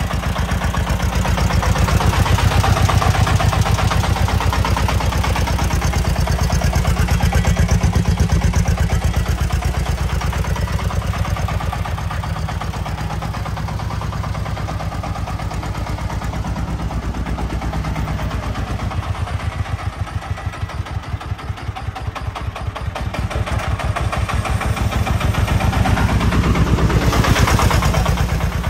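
Diesel engine of a loaded three-wheeled công nông dump truck chugging with a steady pulsing beat as it drives over soft sand, getting louder under load about two seconds in and again near the end.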